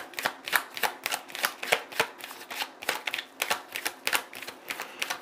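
A deck of tarot cards shuffled by hand, the cards slapping together in quick irregular clicks, about four a second.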